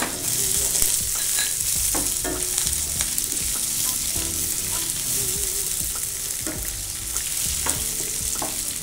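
Thinly sliced onions frying in hot oil with a tempering of mustard seeds, cumin, urad dal, chana dal and dried red chillies: a steady sizzle, with a spatula stirring and scraping against the shallow metal pan every second or so.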